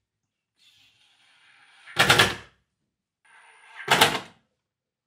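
Bosch Professional cordless driver driving two screws into a drawer slide rail, one after the other: each time the motor runs briefly, building up, then ends in a short loud rattle as the screw seats.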